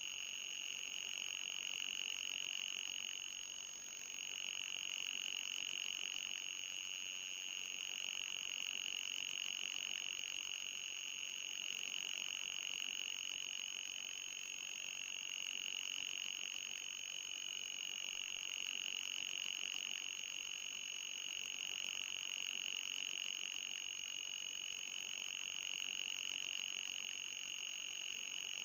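Electronic anti-mosquito repellent tone: a steady high-pitched whine with a fainter, even higher tone above it. The main tone wavers slightly in pitch and dips briefly about four seconds in.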